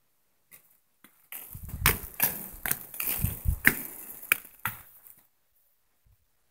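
A quick run of sharp knocks and clatter over rumbling handling noise, starting about a second in and stopping about five seconds in: a toy sword being swung about and knocking against things.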